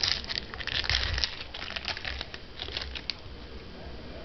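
Crinkling of a trading-card pack wrapper and the rustle of cards being handled, dense for about three seconds, then thinning out.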